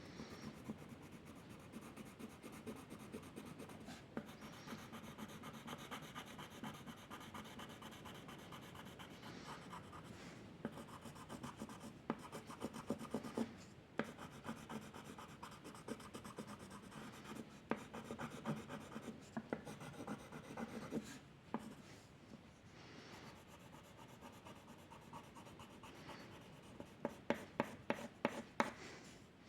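Drawing strokes scratching on paper, continuous back-and-forth rubbing, with a run of quick, sharper strokes near the end.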